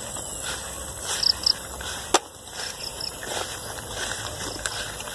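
Tropical field ambience: a steady high insect drone with short high-pitched chirps, twice in quick succession about a second in and fainter later. A single sharp click about two seconds in is the loudest sound.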